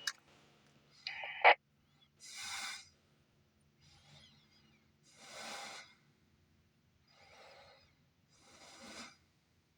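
A brief burst of noise from the radio's speaker about a second in, cut off by a sharp click as the squelch closes after the transmission. Then a man breathes in and out close to the microphone, about six breaths, while the receiver stays quiet.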